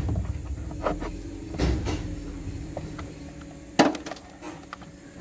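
Scattered clicks and knocks of plastic car interior trim and cable being handled as a dashcam power wire is tucked behind the headliner and A-pillar trim. The sharpest knock comes nearly four seconds in.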